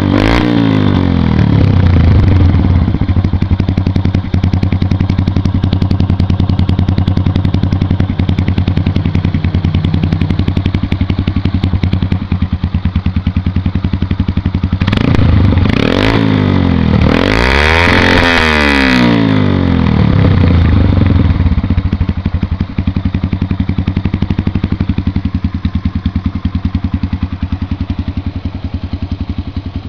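Yamaha XTZ single-cylinder four-stroke motorcycle engine idling through a Roncar RS exhaust cut to half length and packed with FMF 4T glass wool. It is revved briefly as it begins and blipped a few more times near the middle, the strongest rev about 18 seconds in, then settles back to idle, a little quieter near the end.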